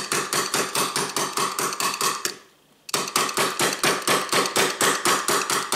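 Small hammer tapping a tiny pin punch to drive a roll pin out of a Beretta 92 slide's decocker against a wooden block: fast, even light strikes, about six or seven a second, each with a short metallic ring. The tapping stops for about half a second a little over two seconds in, then carries on.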